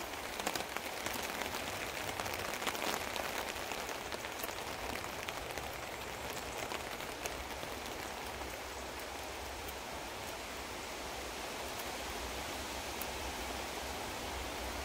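Steady rain pattering on a tarp overhead, with faint scraping clicks of a knife taking push cuts from soft wood, most of them in the first few seconds.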